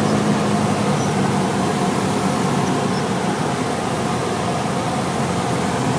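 Light single-engine aircraft's engine and propeller droning steadily, heard from inside the cabin on final approach to land, with a rush of air noise. The low engine hum is strongest in the first second, then weaker.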